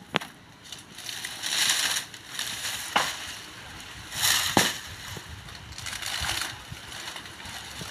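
Dry coconut palm fronds being pulled and shaken, rustling and crackling in bursts, with three sharp snaps spread through.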